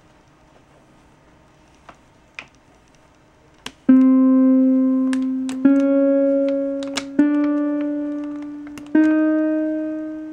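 Four electronic notes, each a step higher than the last, struck and fading over about a second and a half, played through a LEGO EV3 brick's speaker as buttons on an I2C button board are pressed. A few faint clicks come before the first note.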